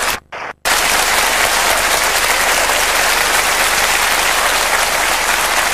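Audience applauding steadily, a dense even clatter of many hands, with the sound cutting out for a split second just after the start.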